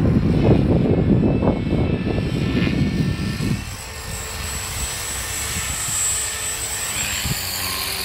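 Wind buffets the microphone in loud gusts for the first three and a half seconds. After that comes the high, steady whine of a CopterX 450 electric RC helicopter's motor and rotor blades, growing louder near the end as the helicopter comes in low to land.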